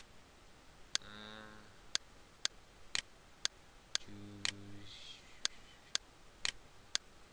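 Sharp computer clicks at a steady pace of about two a second, as items in a software effects list are selected one after another. A short low hum comes in twice, about a second in and again about four seconds in.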